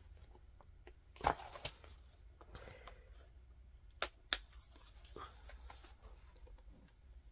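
Fingers and a thumbnail working the thick cardboard lift-the-flap page of a board book: sharp clicks and scrapes of card, loudest about a second in and twice about four seconds in, with light rustling between.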